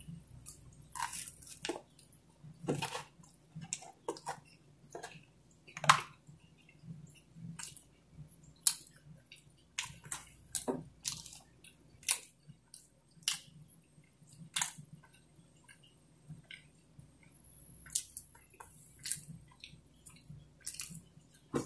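A man chewing pizza: irregular mouth clicks and smacks, about one or two a second, some louder than others.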